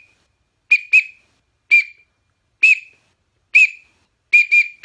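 Teal drake duck whistle blown in short, high peeps, about eight of them, some single and some in quick pairs, imitating the call of a drake teal.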